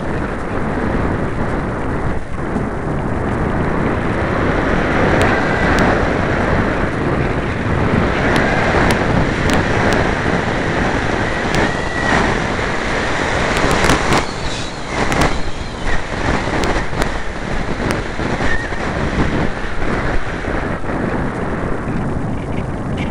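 Rushing airflow over the microphone of a camera mounted on a light glider's wing in flight: a loud, steady wind noise that swells and dips with the gusts. A few short faint whistles and some sharp clicks come through midway.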